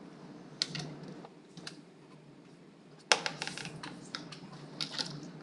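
Felt-tip marker on paper: a few light taps, then about three seconds in a sharp tap and a scratchy stroke lasting over a second as a curve is drawn, with a few more taps near the end.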